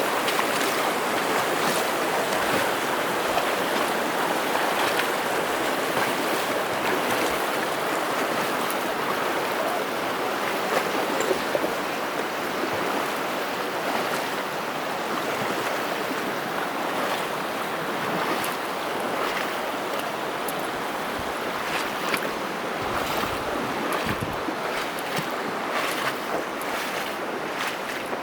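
The North Fork of the Virgin River rushing steadily through the canyon, with the knocks and splashes of footsteps, more frequent in the last third, and a few deep thumps of wind or handling on the microphone near the end.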